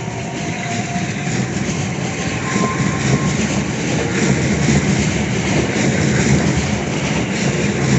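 Class 465 Networker electric multiple-unit train running along the platform, its wheels on the rails making a steady running noise.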